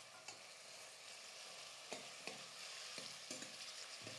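Sliced onions and shallots sizzling steadily in hot oil in a steel pressure cooker as they are sautéd, with a steel ladle stirring and clinking against the pot about six times.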